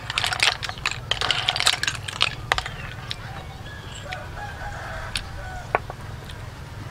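Metal spoon stirring cooked river snail shells in a metal tray, a rapid clatter of clicks and scrapes for the first two seconds or so, then a few single clicks as snails are picked out. A rooster crows faintly in the background.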